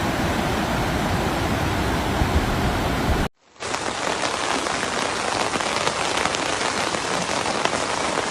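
Heavy rain pattering densely on a hard surface. For the first three seconds or so there is a steady rushing noise instead; it cuts out abruptly and the rain comes in straight after.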